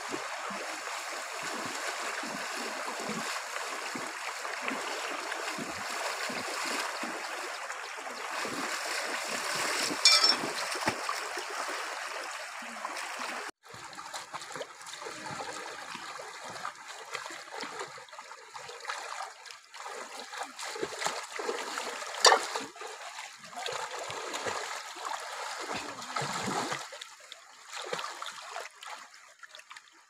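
Shallow river running over rocks, with the splashing of people wading and swimming through it. Two brief sharp knocks stand out, one about ten seconds in and a louder one a little past twenty seconds.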